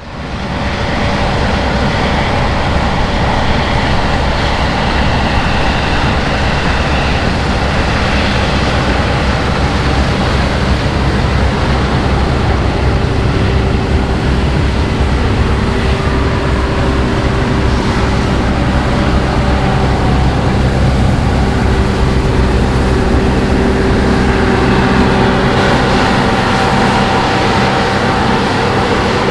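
New Holland CR8.90 combine harvester running steadily at work, a continuous heavy engine drone with the whine of its threshing machinery. A steady higher tone rises above it for a stretch in the middle.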